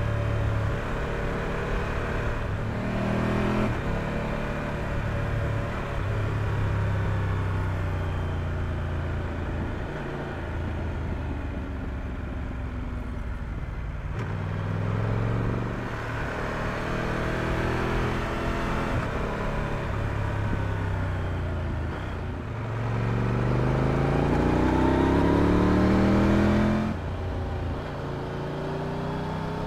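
Triumph Tiger 1200 Rally Pro's inline three-cylinder engine heard from on board while riding, its revs rising and falling through the bends. Near the end it climbs in a long rising pull, then the revs drop suddenly.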